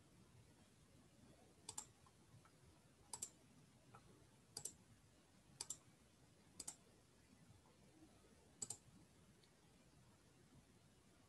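Six faint computer mouse clicks, each a quick double tick, spaced a second or two apart over low background hum.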